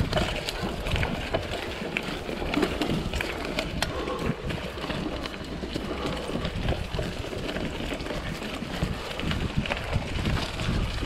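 Mountain bike riding over a dirt trail: a steady rumble of tyres on rough ground, with many small rattles and clicks from the bike.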